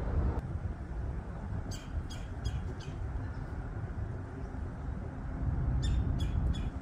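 A bird giving two quick runs of short, sharp calls, about four each, the first about two seconds in and the second near the end, over a steady low rumble.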